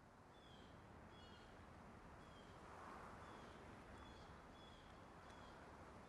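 Near silence: faint forest ambience with small birds chirping briefly now and then over a soft steady hiss.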